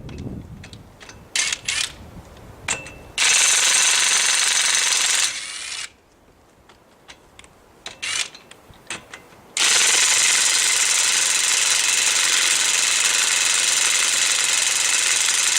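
Ridgid 18V brushless cordless impact wrench hammering on a nut: a two-second burst about three seconds in, then scattered clicks and knocks, then a long unbroken run of hammering from about ten seconds in.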